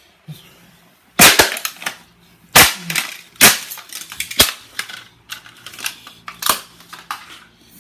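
Plastic parts of a Eureka handheld vacuum being smashed: about five hard, sharp blows a second or so apart, each followed by cracking plastic and clattering fragments.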